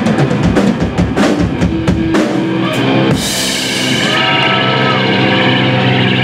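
Live rock band on electric guitars, bass and drum kit: rapid drum hits for about three seconds, then the drums stop and the guitars ring on in a held, sustained chord, with a thin high tone bending in briefly around the middle.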